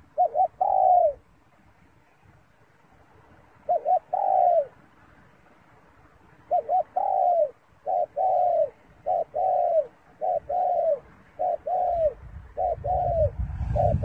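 Spotted dove cooing: phrases of two quick short coos and a longer falling coo, at first about every three seconds, then coming faster, roughly once a second, in the second half.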